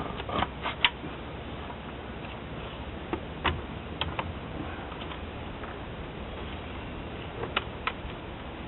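Scattered short clicks and taps from the outer axle-boot clamp being worked into place by hand: a cluster in the first second, a few more about midway, and two near the end, over a steady low hiss.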